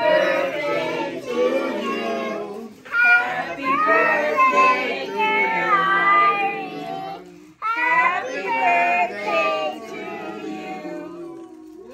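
Children's voices singing, several at once, with a short break about seven and a half seconds in.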